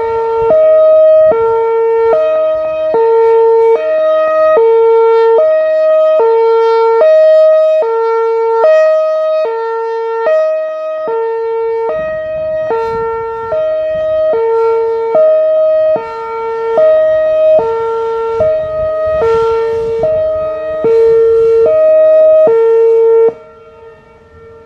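Whelen Vortex R4 electronic mass-notification siren sounding its hi-lo tone, alternating between a lower and a higher pitch about every 0.7 seconds. The siren cuts off suddenly near the end.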